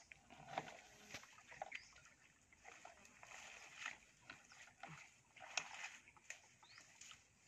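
Faint, scattered sloshing and small splashes of water, with a few light knocks.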